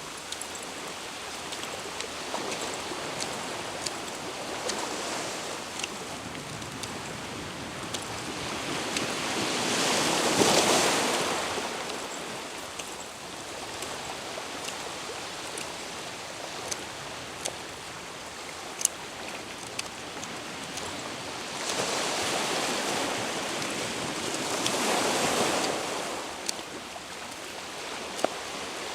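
Sea waves washing onto the shore, the surf swelling louder twice, about a third of the way in and again near the end, with a few faint sharp clicks.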